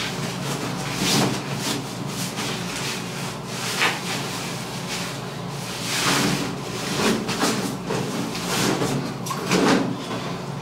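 Rustling and swishing of jeans and leggings being hurriedly pulled on and off, with several short louder swishes and knocks of movement, in a small tiled bathroom.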